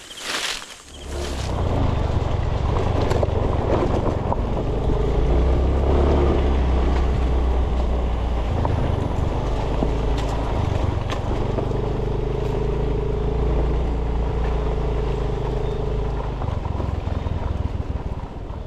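Small motorcycle engine running steadily while being ridden, with wind rumbling on the microphone.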